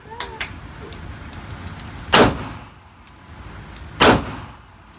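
Two loud gunshots about two seconds apart, each trailing off in a short echo, with fainter sharp clicks in between.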